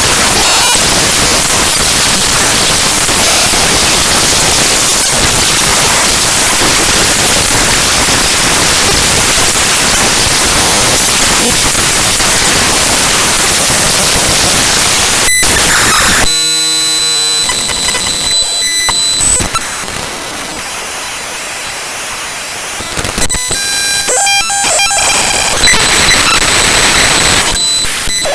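Raw binary data of Microsoft WordPad's program files played directly as audio. A loud, even static hiss gives way about sixteen seconds in to a quieter, glitchy buzzing made of steady high tones and fast repeating pulses, which grows louder again near the end.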